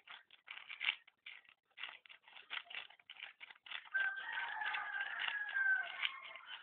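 Plastic packaging crinkling and crackling as a wrapped squishy is handled close to the microphone. About four seconds in, a drawn-out call with a steady pitch sounds for about two seconds.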